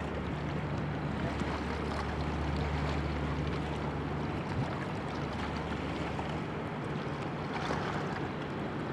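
Low engine drone of a passing inland barge, a steady hum that fades in the second half, over wind on the microphone and river water lapping.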